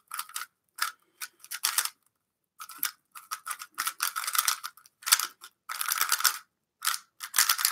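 Cubicle GTS3 LM speedcube being turned quickly by hand: runs of rapid plastic clicks and clacks as the layers turn, in bursts with a brief pause about two seconds in. The cube is a freshly lubed, gummy custom setup still being broken in.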